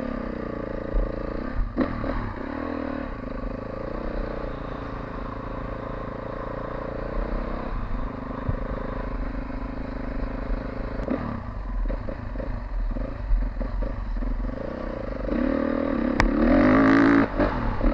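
Dirt bike engine running under a rider at low speed, its revs rising and falling with the throttle. It gets louder near the end as the bike picks up speed.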